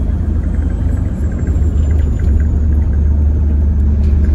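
Loud, steady low rumble of an Alexander Dennis Enviro400H hybrid double-decker bus under way, heard from inside the lower deck, growing heavier about halfway through. A faint high whine falls slowly in pitch over the first couple of seconds.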